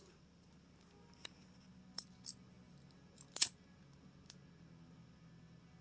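A handful of short, sharp clicks, spaced irregularly, the loudest about three and a half seconds in, over a faint steady low hum.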